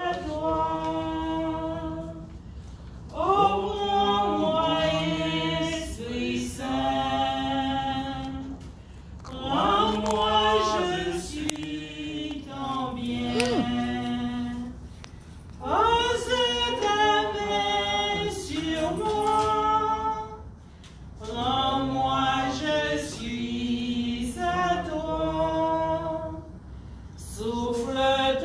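A small group of voices singing a sacred song unaccompanied, in phrases of about five or six seconds with short breaths between.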